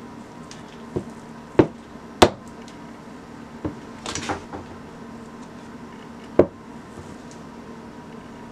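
Marble rolling pin rolling dough on a stone countertop, giving a handful of sharp, irregular knocks and clacks, with a short rattle about four seconds in.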